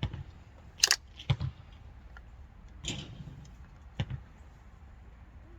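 A few sharp clicks and taps of small tools and carburetor parts being handled on a workbench, four separate knocks spread over several seconds, the loudest about a second in.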